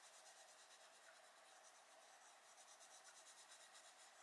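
Faint scratching of a Faber-Castell Polychromos coloured pencil shading on paper, in short repeated strokes.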